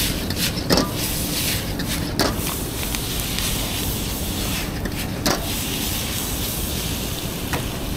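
Chow mein stir-frying in a wok over a gas burner: a steady sizzle and hiss, with a metal spatula scraping and clanking against the wok several times.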